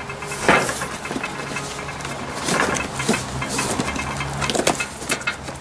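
A small engine running steadily in the background, sounding like someone's chainsaw, under the rustle and knocks of a cardboard box being handled and stood up on a tiled table.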